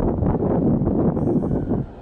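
Wind buffeting the microphone in uneven gusts over a stationary electric train. A faint, high, steady tone joins about a second in.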